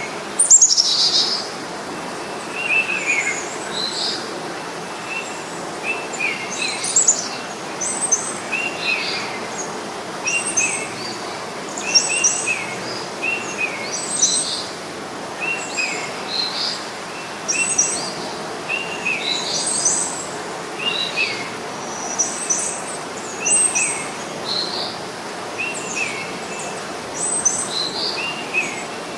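Birds chirping in trees. A lower, short chirp repeats every second or two, and other, higher chirps are scattered around it, with a louder one just after the start, all over a steady background hiss.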